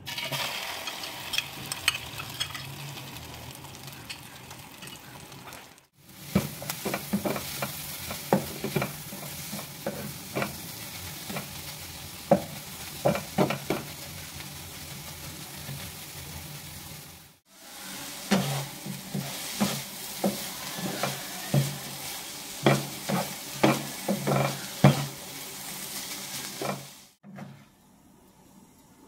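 Egg and chopped vegetables sizzling in oil in a non-stick frying pan while a spatula stirs them, with frequent sharp taps and scrapes of the spatula against the pan. The sound breaks off briefly twice and stops near the end.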